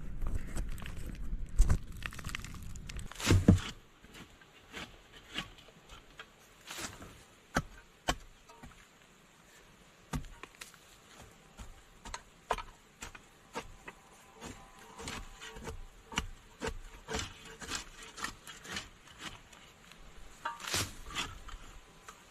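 Irregular knocks and taps, like wood being struck or worked by hand, about one or two a second, with a few louder strikes. A low rumble fills the first few seconds.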